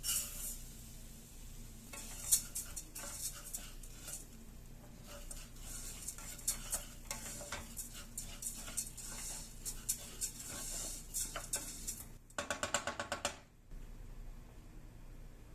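Kitchen utensils clicking and scraping against cookware over a faint hiss, then about a second of fast, loud rattling clicks near the end.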